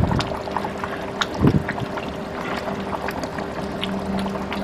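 Thick tamarind fish gravy simmering in a wok, with scattered small bubbling pops over a steady low hum, and a soft knock about one and a half seconds in.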